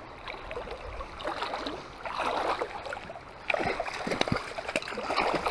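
A hooked brown trout thrashing and splashing at the surface of shallow creek water as it is played in, over the steady rush of the creek. The splashing picks up from about two seconds in and is sharpest in the second half.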